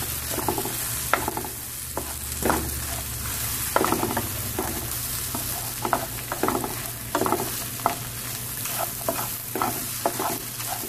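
Fried tortilla pieces and beaten egg sizzling in hot oil in a frying pan while being stirred, the utensil scraping and clacking against the pan in many short, irregular strokes.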